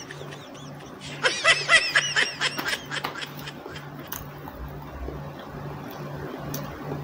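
A short burst of high-pitched snickering laughter, a quick run of breathy laughs lasting about two seconds, starting about a second in. A low hum pulses on and off about twice a second underneath.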